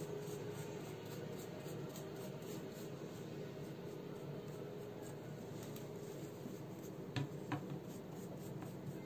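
Paintbrush bristles brushing liquid wax lightly over the relief of a cast picture frame, a faint scratchy rubbing, with a couple of light ticks about seven seconds in.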